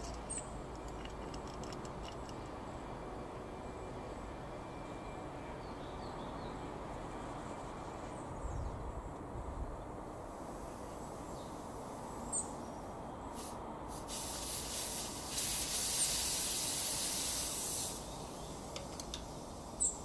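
Outdoor background noise with a few faint high chirps. About halfway through, a high hiss starts, grows loud over several seconds, and cuts off abruptly near the end.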